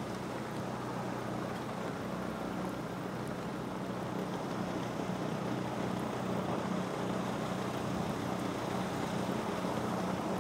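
A vehicle's engine and tyres on a snow-covered road, heard from inside the cab as a steady, low drone that grows slightly louder toward the end.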